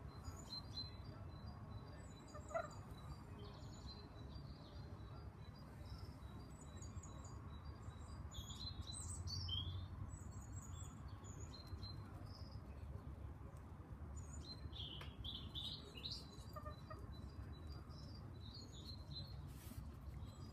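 Birds chirping: many short, high chirps scattered throughout, over a low steady hum.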